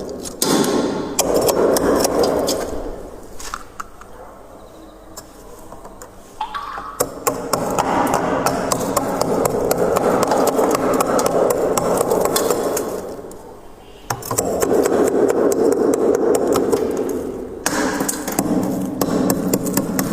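Close-up crunching of freezer frost ice, in several dense, crackly bursts of a few seconds each with short quieter pauses between them.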